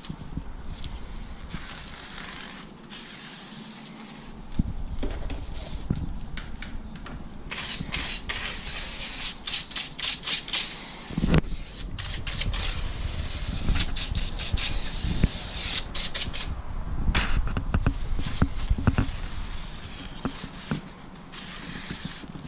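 Stiff-bristled hand brush scrubbing an aluminium sliding-window track in quick runs of short strokes through the middle, with a microfibre towel rubbing along the metal track before and after.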